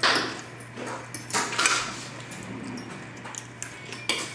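Forks clinking and scraping on dinner plates and serving dishes, a scattering of short, sharp clinks.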